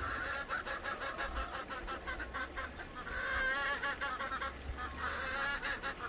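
A flock of domestic ducks quacking, many quick calls overlapping, loudest about halfway through.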